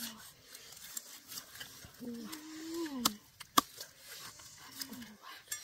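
Cleaver cutting into the crisp roasted skin of a pig head, with a few sharp cracks, the loudest a little past halfway.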